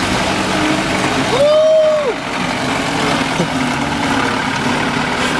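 A vehicle engine running steadily under a constant noise. A brief rising-and-falling pitched sound, like a short voiced call, comes about one and a half seconds in.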